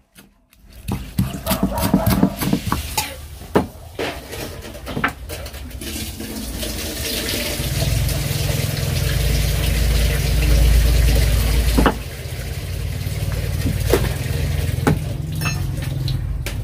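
Water running steadily from a tap into a basin, building up about six seconds in. Clinks and knocks of dishes and vegetables being handled come in the first few seconds and a few times later.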